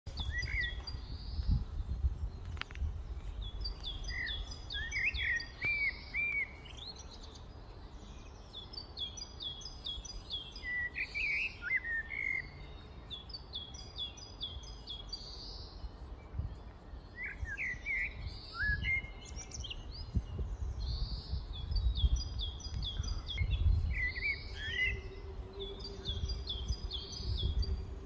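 Wild songbirds singing and calling: a high song phrase of quick repeated notes comes back every few seconds, mixed with lower chirps and sliding call notes, over a low, uneven rumble.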